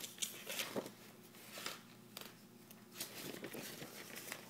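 Pages of a paper picture book being handled and flipped: a few faint, scattered paper rustles and flicks.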